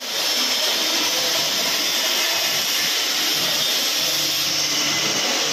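Steady rasping din of hand files and hacksaws working metal at bench vices, many strokes blending into one continuous hiss.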